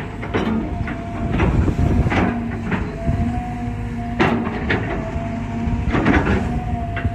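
Cat 320GC excavator with its Cat C4.4 ACERT diesel running, a steady engine and hydraulic drone with two held tones, broken by about eight irregular metallic clanks and crunches from the working machine.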